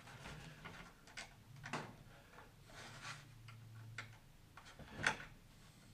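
Faint, scattered small clicks and taps from hands working the Z-bent wire linkage and servo fittings on a model aircraft wing.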